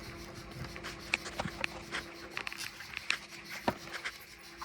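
Baseball trading cards being handled, with light ticks and rubs as cards slide against one another, over a faint steady hum.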